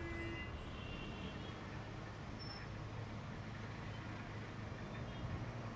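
Steady low rumble of distant street traffic.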